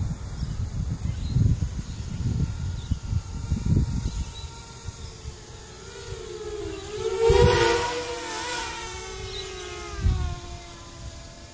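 MicroVolt 250 FPV quadcopter's motors and propellers whining in flight, pitch rising and falling with throttle. It passes loudest about seven to eight seconds in, then the pitch drops as it moves away. Low rumbling thumps come in the first few seconds.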